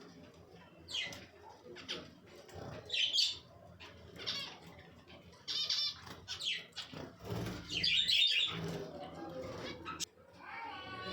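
Pet budgerigars chirping and chattering: a string of short, high warbling calls, busiest about three seconds in and again around eight seconds.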